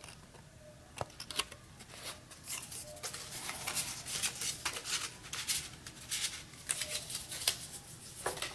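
Paper cards and a small card envelope handled by hand: a run of dry rustles and light taps, starting about a second in.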